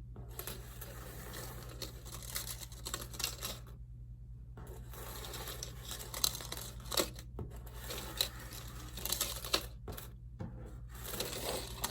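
Metal paperclips clicking and rustling irregularly as they are handled and linked together, over a steady low hum.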